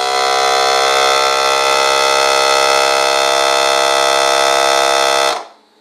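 Countertop vacuum sealer's pump running with a steady electric hum as it draws the air out of the bag, then cutting off abruptly about five and a half seconds in.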